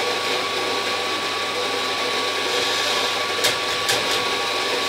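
Rancilio Rocky burr grinder's motor running steadily while grinding, with two light clicks about three and a half seconds in.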